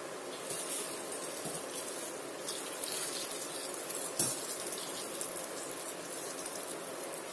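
Warm sugar syrup pouring from a steel pan over fried gulab jamuns in a steel tin, a steady trickle and splash starting about half a second in. A single light metallic knock about four seconds in.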